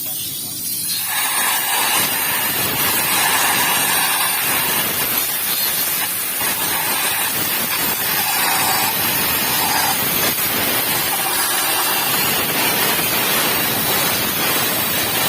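Steady, loud hiss of a pressurised jet of spray or air during an engine carbon-cleaning tune-up.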